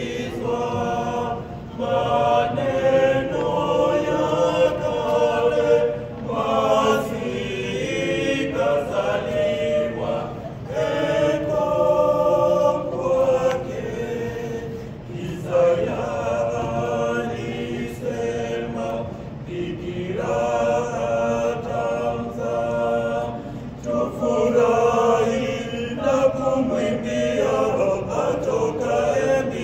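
Small mixed choir of five voices singing a Swahili Christmas song a cappella, in held chords and phrases of a few seconds with short breaks between them.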